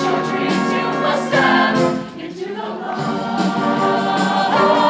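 Mixed show choir singing in full harmony, with long held notes. The sound drops quieter about two seconds in, then builds back up.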